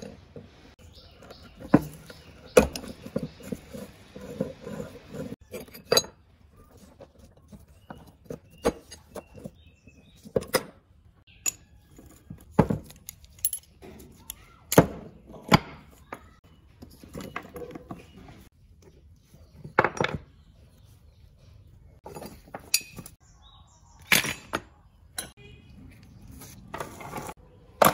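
Scattered metal clinks and knocks as steel tools, a bearing puller and rusty bolts are handled and set down during disassembly of an electric planer's cutter drum, with a few seconds of metal scraping about three seconds in.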